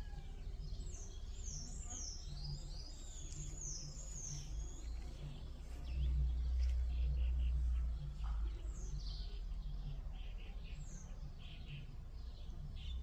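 Birds singing: quick falling chirps in the first few seconds, then runs of short repeated high notes. Under them runs a steady low rumble that swells for about two seconds midway.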